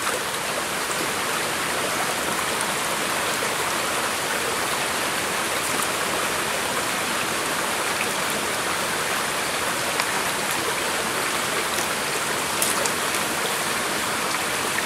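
Shallow rocky stream running: a steady rush of flowing water, with a few brief clicks about two thirds of the way in.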